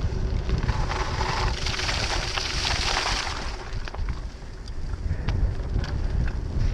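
Wind buffeting the microphone, a low rumble throughout, with a louder hissing stretch from about one to three and a half seconds in.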